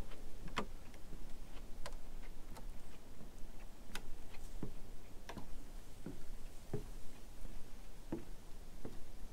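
Footsteps on the wooden planks of a boardwalk and pier at a steady walking pace: a sharp knock about every two-thirds of a second.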